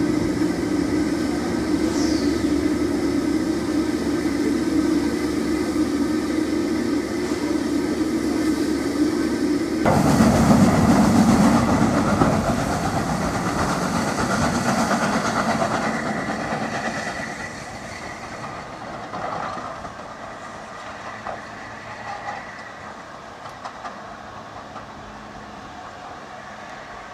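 Steady mechanical hum of locomotives standing in a yard, then, after a cut about ten seconds in, Southern Railway Schools class 4-4-0 No. 925 running tender-first away down the line, its sound fading as it recedes.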